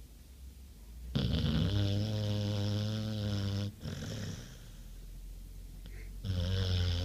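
A sleeping dog snoring: a long, loud, steady-pitched snore with a raspy hiss from about a second in, lasting some two and a half seconds, then quieter breathing, then another loud snore starting near the end.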